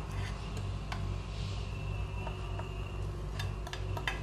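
Faint light clicks of a steel spoon against a plate as grated coconut is scraped into a pan, over a steady low hum.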